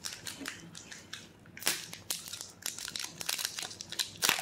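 Foil booster-pack wrapper crinkling as hands handle it, in irregular sharp crackles that grow louder and denser about a second and a half in.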